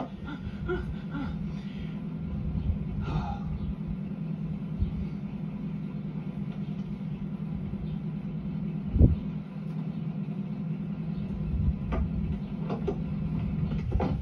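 Cartoon car's engine sound effect from a TV's soundtrack, recorded through the TV speaker: a steady low hum, with one thump about nine seconds in and a few light clicks near the end.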